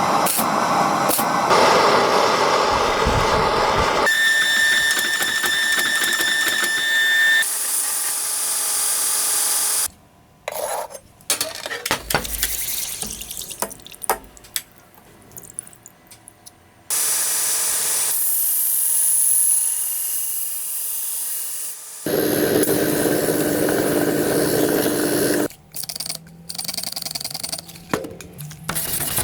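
A string of workshop tool and machine sounds, each cutting off abruptly into the next: machine running with a steady high whine, stretches of hiss, and spells of scattered clicking and tapping.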